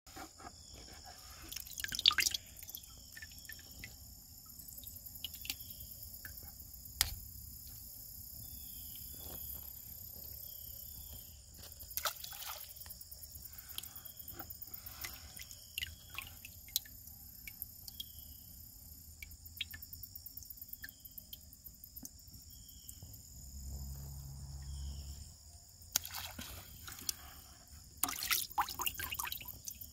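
Water sloshing and dripping in a plastic bucket of bluegill as it is carried, with scattered drips and knocks. Near the end come several loud splashes as the fish and water are let into the creek.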